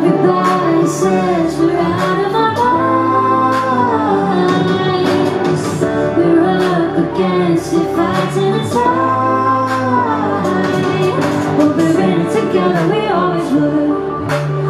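Live pop song: a woman singing the lead vocal over electronic keyboard accompaniment, her voice rising and falling in long arching phrases over steady bass notes.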